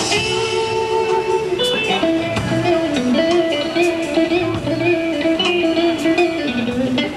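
Electric guitar playing long held notes that waver slightly in pitch, over a quieter background of plucked notes and light ticks.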